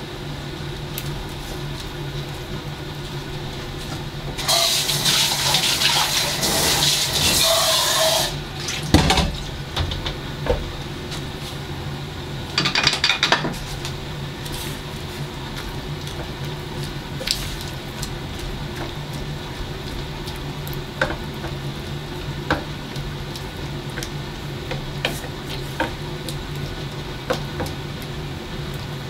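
Water poured into an aluminium pot of vegetables for about four seconds, then a clatter and a second short splash. Scattered light clicks and knocks follow over a steady low hum.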